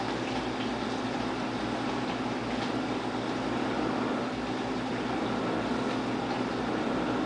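Steady hum and hiss of background noise, with a few faint ticks.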